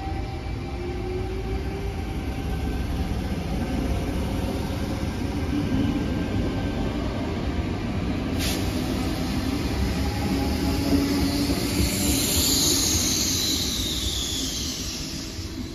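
Tangara electric train pulling out and accelerating away: a steady rumble of wheels on rail, with a motor whine rising in pitch at the start. There is a sharp click about halfway through, and a high wheel squeal that falls in pitch near the end.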